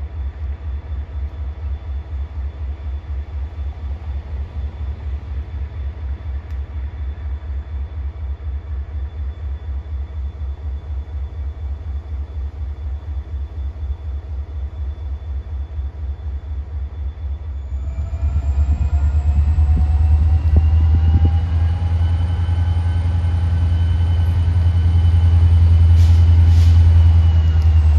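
EMD GP40-2 diesel locomotive's turbocharged V16 idling with a steady, evenly throbbing low rumble. About eighteen seconds in the engine gets louder and a rising whine comes in, the turbocharger spooling up as the engine works harder.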